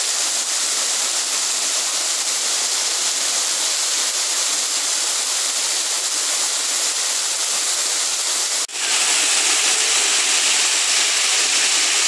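Waterfall pouring down a rock face onto the rocks below: a steady, even rush of falling water. It breaks off for an instant about nine seconds in, then resumes slightly louder.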